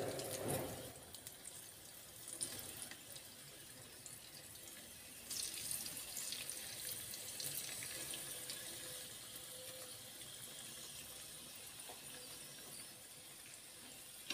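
Banana-filled wonton-skin rolls sizzling in shallow oil in a frying pan over low heat: a steady hiss with fine crackles that grows louder about five seconds in.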